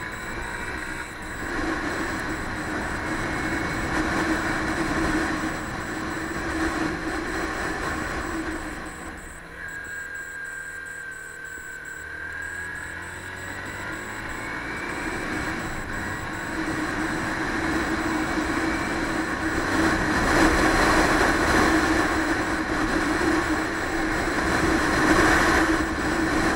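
Motorcycle engine running on the move, with wind rushing over the helmet-mounted microphone. The sound eases off around ten seconds in, then builds again and is loudest near the end.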